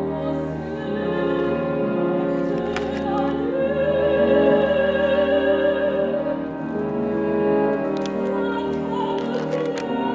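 Soprano singing a French art song with a chamber ensemble of strings, piano, oboe and horn. In the middle she holds one long note with vibrato.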